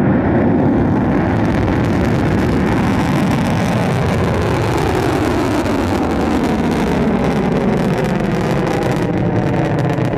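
Steady, loud rumble of a Ceres-1 rocket's solid-fuel first-stage motor during liftoff and climb, with faint tones slowly falling in pitch through it.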